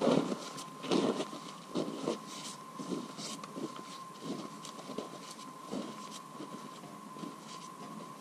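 Footsteps crunching in snow, about one a second, growing fainter as the walker moves away. A faint steady high whine runs underneath.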